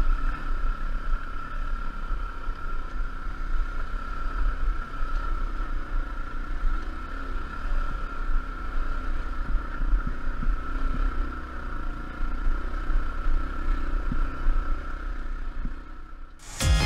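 Dirt bike engine running at a low, steady pace through the camera's microphone, with a deep rumble, a steady high whine and a few light clicks as the bike rolls over stones. Music cuts in right at the end.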